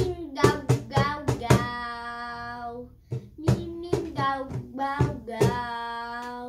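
A child slapping the front of a cajon in a steady hand-drum beat while singing along. The strikes pause about two seconds in while he holds a long sung note, then resume, and he holds another long note near the end.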